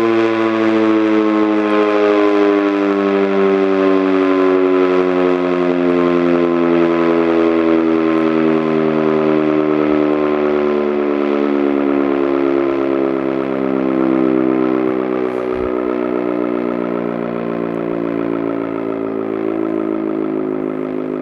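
American Signal OM-117 mechanical outdoor warning siren sounding its Short Alert test, its loud chord of tones sliding slowly and steadily down in pitch as the rotor winds down. The uploader says the siren's motor is dying.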